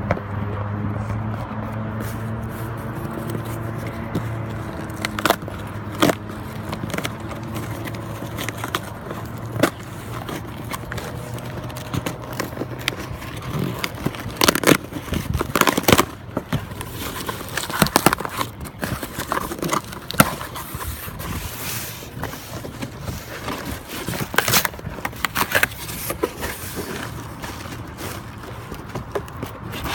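A cardboard box being opened and handled: scraping, crackling and tearing of cardboard and tape, with sharp knocks and bumps, busiest in the second half. A steady low hum sounds underneath for about the first dozen seconds, then fades.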